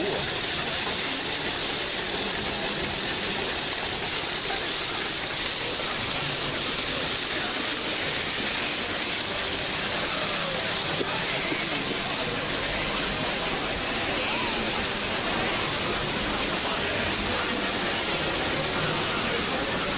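Steady rush of falling water from a waterfall, an even noise with no breaks, with faint voices of people under it.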